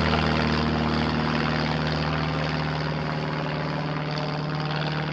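Cessna 150 light plane's four-cylinder piston engine and propeller droning steadily as it flies past, slowly fading.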